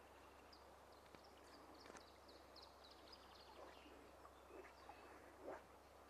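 Near silence with faint bird chirps, a run of short high notes in the first three seconds, and a soft low thump about five and a half seconds in.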